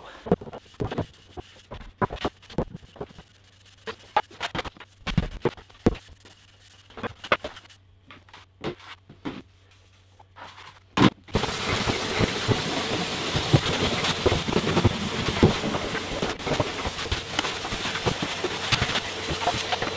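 Hand brush and dustpan sweeping dust off a workshop floor: irregular short brushing scrapes and knocks with pauses between them. About eleven seconds in, a canister vacuum cleaner starts suddenly and runs steadily, its hose sucking up the dust.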